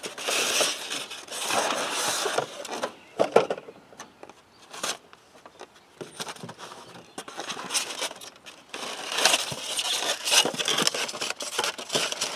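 Cardboard box and foam packing being handled: rustling and scraping as a small engine analyzer meter is lifted out of its foam tray and a paper instruction booklet is pulled out, with a few sharp clicks. The handling comes in two busy stretches with a quieter gap a few seconds in.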